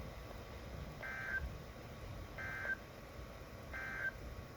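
Emergency Alert System end-of-message code on NOAA Weather Radio: three short bursts of digital data tones, about a second and a half apart, over a low hiss.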